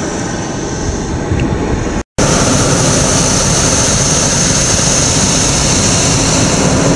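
Hot air balloon's propane burner firing, a loud steady rushing blast, cut off for an instant about two seconds in and then running on.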